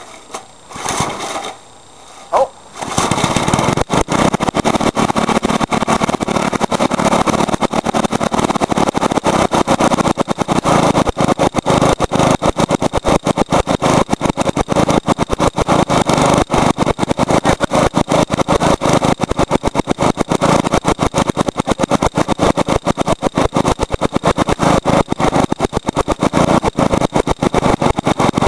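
Briggs & Stratton lawnmower engine catching about three seconds in, after a few short sputters, then running loud and fast with a rapid, even firing rattle.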